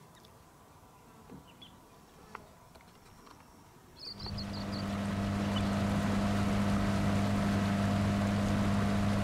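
Faint and quiet at first, with a few soft clicks and a quick run of high chirps about four seconds in; then an outboard motor on a small wooden river boat running at a steady speed, a constant hum with water rushing past the hull.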